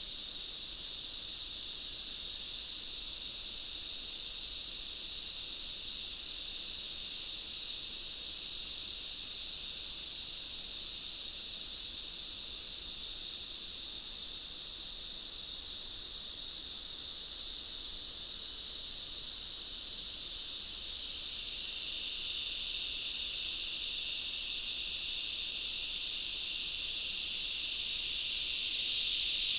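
Dense chorus of insects in jungle ambience: a steady, high, shrill buzzing that does not pause. In the last several seconds a slightly lower-pitched part of the chorus swells and grows louder.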